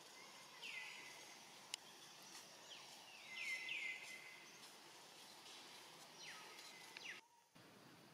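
Faint high-pitched animal calls over a quiet outdoor background: short chirps, each a quick downward glide, several in a row with a cluster in the middle, plus one sharp click early on.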